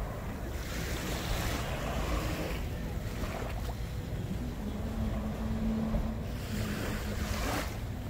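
Small waves breaking and washing up onto a sandy beach. Two surges of hiss come in, one about a second in and one near the end, over a steady low rumble.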